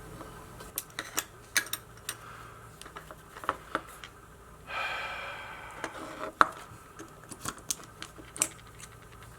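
Small sharp clicks and taps of hard plastic and metal parts being handled on a workbench while working on a small action camera. A brief pitched sound with several tones rings about five seconds in and fades over about a second.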